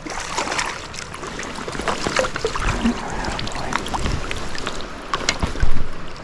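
Water splashing as a hooked trout thrashes at the surface while it is being landed, with many small sharp splashes over the rush of the stream and a louder splash near the end.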